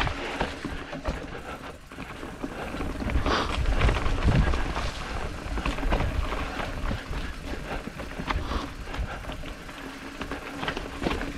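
Mountain bike riding down a rough trail: tyres crunching over dirt and rocks, with the chain and bike parts rattling in short clicks and wind buffeting the microphone in a low rumble.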